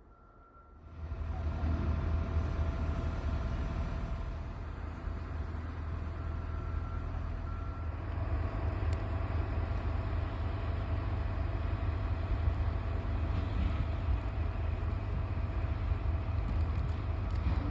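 Motor vehicle driving: a steady low rumble with road noise that starts about a second in, after near silence.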